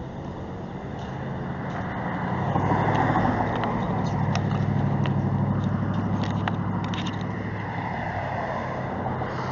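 Motor vehicle engine running with a steady low hum. It grows louder over the first three seconds, holds, then eases off a little.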